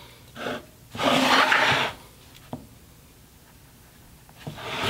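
Round pine board scraping against the metal table saw top as it is turned by hand, along with pencil marking on the wood: three rubbing scrapes, the middle one about a second long, with a faint tick between.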